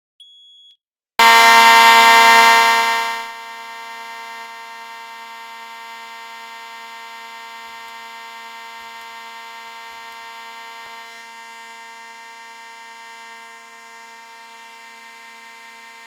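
Fire alarm sounding one continuous, unbroken alarm tone that starts suddenly about a second in after a short high beep. It is very loud for about two seconds, then much quieter and steady.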